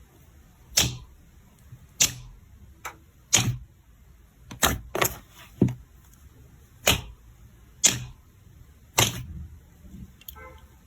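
Slime being handled, making sharp popping clicks about once a second, some in quick pairs. A short crackly ripple comes near the end.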